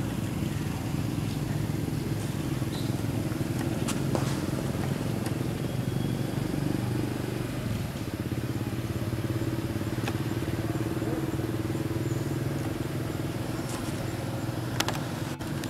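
A motor running steadily with a low, even hum, with a few faint clicks.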